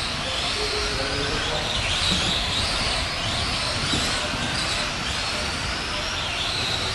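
Several Tamiya Euro racing trucks' electric motors and gears whining as they race, the pitch rising and falling as they speed up and slow down, over a low steady rumble.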